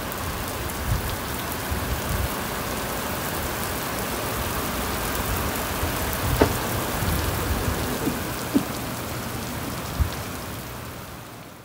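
Steady rain falling on wet pavement, with a few sharper drop hits close by; it fades out near the end.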